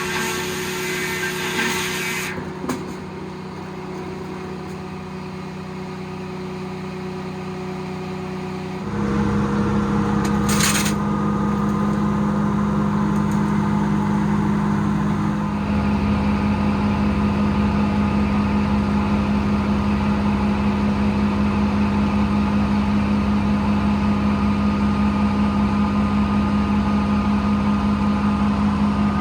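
Detroit diesel engine powering a circle sawmill, running steadily; a high hiss cuts off about two seconds in. About nine seconds in the engine gets louder with a fast pulsing beat, there is a brief hiss shortly after, and it steps up again about sixteen seconds in.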